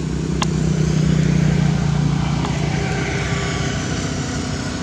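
A motor vehicle engine running steadily as it passes, growing louder over the first second or two and then easing off. There is one sharp click about half a second in.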